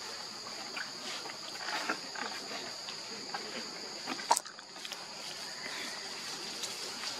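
Insects droning steadily at a high pitch, with scattered soft clicks and one sharp click about four seconds in.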